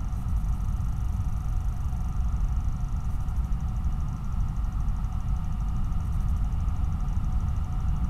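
Steady low rumble and noise picked up by a trail camera's microphone, with a faint steady electronic whine over it and, from about three seconds in, a faint fast ticking.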